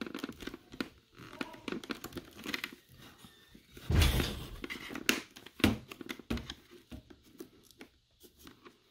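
Handling noises from a helmet being reassembled: its fabric-covered liner pads rustling and plastic parts clicking and scraping as they are pressed into the shell. The loudest scrape comes about four seconds in.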